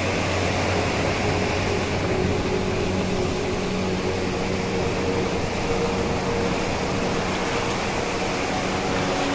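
A steady engine hum that holds unchanged, over a constant rushing noise.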